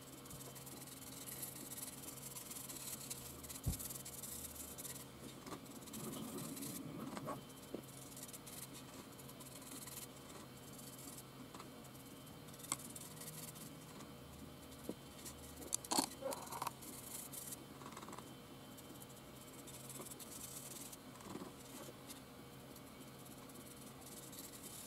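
Faint scratching and dabbing of a stiff horsehair brush working dry rust-red paint into a 3D-printed plastic terrain piece, with a few sharp clicks about two-thirds of the way through.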